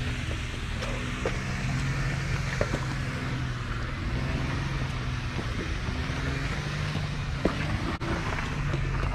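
Off-road vehicle engine running steadily at low speed over a rocky trail. Scattered knocks and rattles from the ride sit over a haze of wind and tyre noise.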